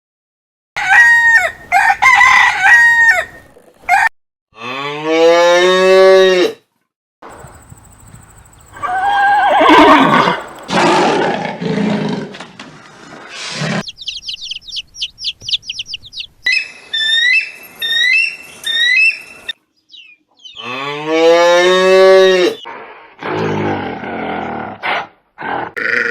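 A string of different animal calls cut one after another with short gaps, several of them long pitched calls that rise and fall, and, in the middle, a fast high trill followed by repeated high chirps.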